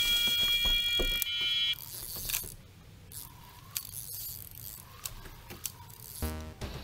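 Electronic carp bite alarm sounding one continuous high tone as a fish takes line on a run. It cuts off about two seconds in and is followed by faint handling clicks and a short buzzing rattle near the end.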